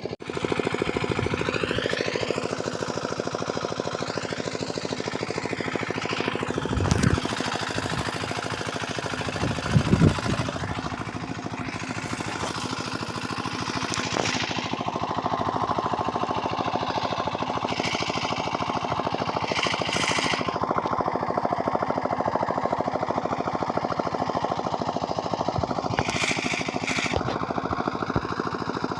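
An engine running steadily with a fast, even beat, and two louder low thumps about seven and ten seconds in.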